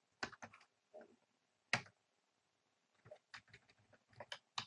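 Irregular keystrokes on a computer keyboard: about a dozen separate clicks with short quiet gaps between them, the loudest a little under two seconds in.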